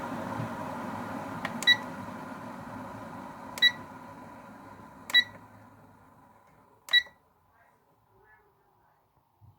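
Electric kettle beeping four times, short sharp electronic beeps about two seconds apart, while the rushing noise of just-boiled water dies away.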